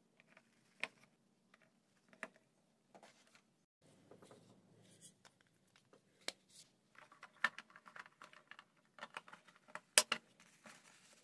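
Hard plastic toy garage parts handled and fitted together: scattered light clicks, rattles and scrapes, with one sharp snap near the end.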